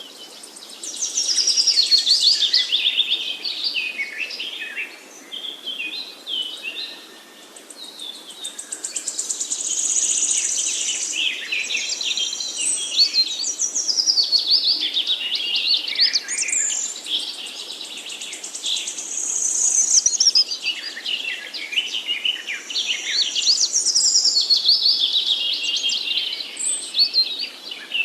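Several songbirds singing at once in a forest: fast, high-pitched overlapping trills and twittering phrases, with brief lulls between bouts.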